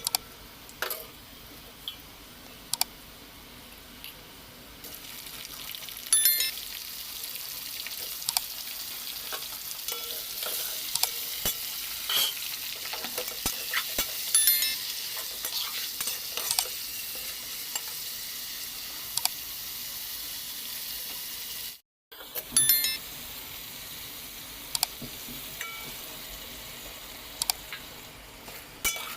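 Eating from a plate: scattered clinks and scrapes against the plate over a steady hiss, with a brief drop-out about 22 seconds in.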